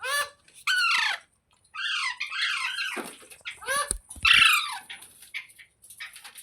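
Green ringneck parrot (rose-ringed parakeet) calling: a run of short, harsh squawks, each falling in pitch.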